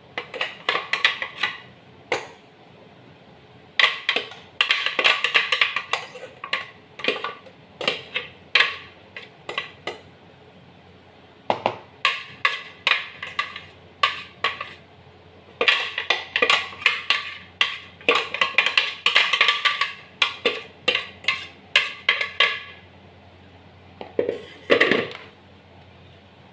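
Metal spoon scraping and knocking against a blender jar as blended chicken breast is spooned out into a plastic container, in bursts of quick scrapes and ringing clinks with short pauses between.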